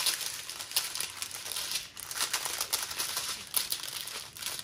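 Small plastic bags of diamond-painting drills crinkling and rustling as they are handled, a steady run of sharp crackles.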